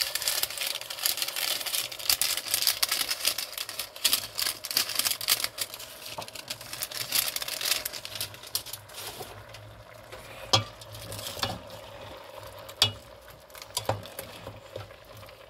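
Bitter melon and beef stir-frying in a stainless steel pot: a dense sizzle and crackle as the food is stirred, thinning out about halfway through to a few separate clicks of the spatula against the pot.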